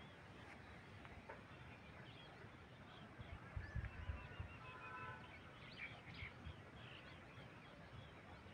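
Faint field ambience with birds chirping and calling, a run of short repeated call notes in the middle. A few low thumps come about four seconds in.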